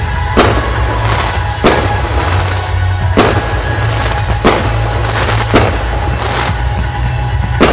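Aerial firework shells bursting in a series of sharp bangs, about one a second, with music playing under them.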